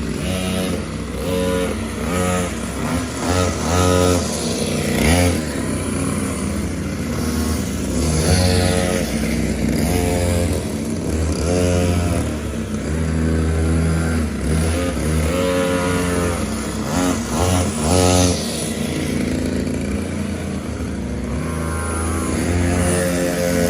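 Mini motorbike engine revving up and down over and over, its pitch rising and falling every second or two.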